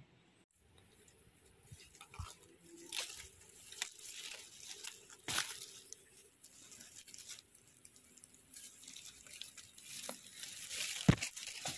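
Dry leaf litter crackling and rustling under a hand as a porcini (Boletus edulis) is dug out and worked loose from the forest floor, in uneven crackles. A sharp crack near the end is the loudest sound.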